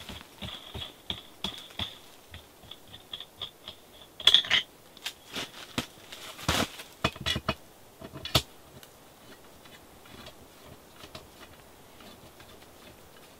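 Clicks, clinks and knocks of a telescoping metal tent pole being handled and adjusted: a quick run of ticking at the start, several sharp clacks in the middle, then only small faint knocks.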